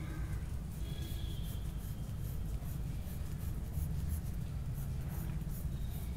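Coloured pencil shading on sketchbook paper: quick, repeated short scratching strokes, over a steady low hum.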